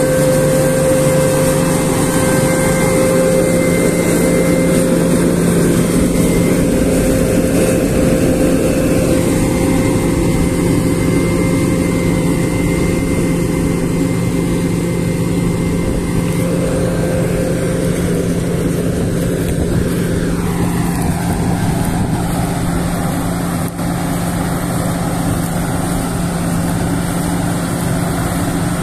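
Fendt 5255L combine harvester running steadily while threshing alfalfa, a continuous machine drone with a steady whine. The higher whine drops out about two-thirds of the way through, and the pitch then falls as the machine moves away.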